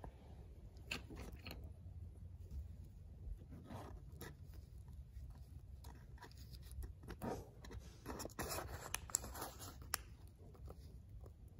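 An old paintbrush scrubbing paint-stripper gel over a small die-cast toy car body to lift its paint, in soft, irregular scratching strokes with a denser run about two-thirds of the way through. A low steady hum runs underneath.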